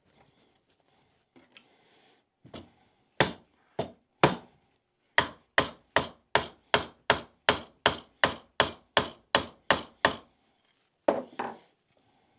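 Hammer blows on metal, knocking at a seized shaft adapter in a TaylorMade SIM driver head. A few separate strikes come first, then a steady run of about fourteen quick blows at nearly three a second, and two more near the end.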